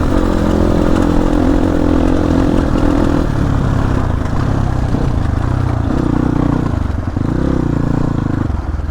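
Motorcycle engine running under load on a rough dirt track, its pitch rising and falling with the throttle and dropping briefly about seven seconds in and again near the end.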